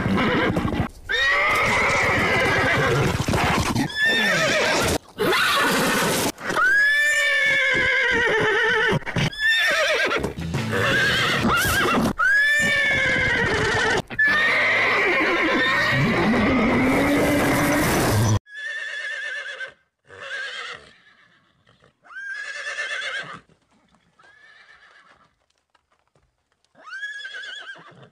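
Horses whinnying and neighing, call after call, each rising and then falling in pitch. For about the first two-thirds the calls are loud and run together over a constant rushing background; then the sound drops suddenly to quieter, separate neighs with short silences between them.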